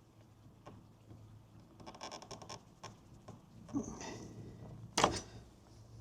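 Small hand-tool clicks and scrapes as a ground-down Allen key, used as a makeshift easy-out, is worked into a broken grease nipple; a quick run of fine clicks about two seconds in and a sharp knock about five seconds in. The makeshift extractor is not clearly turning the nipple.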